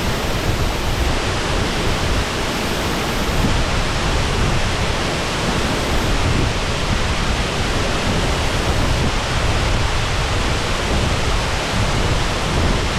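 Steady, loud rush of water pouring down the Shasui Falls, an even roar of falling water with no break.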